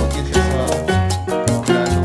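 Background music with a steady bass line and regular percussion, in a Latin dance style.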